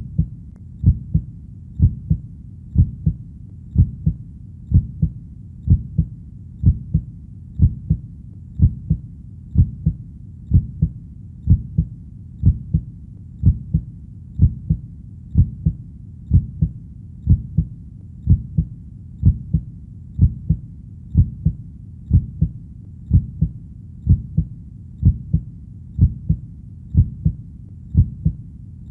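Heartbeat: a steady, evenly paced lub-dub, each beat a low double thump, about one a second.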